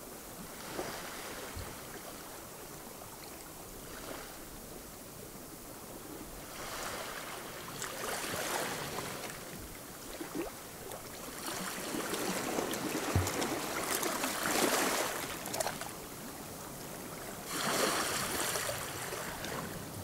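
Gentle waves lapping against a rocky shore, the wash of water swelling and fading several times, loudest about two-thirds of the way through.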